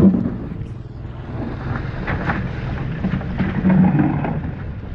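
Wheeled excavator's diesel engine running steadily as it digs, growing louder for a moment about four seconds in as the hydraulics take load.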